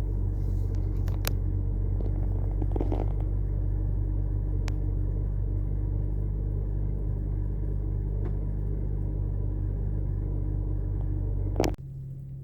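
BMW N52 straight-six engine idling steadily, with a few light clicks. Near the end the sound cuts off suddenly to a quieter, lower hum.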